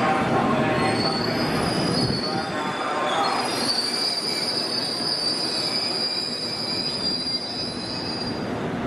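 Passenger train's steel wheels squealing on the rails: thin high squealing tones over the rumbling noise of the moving train, easing off slightly toward the end.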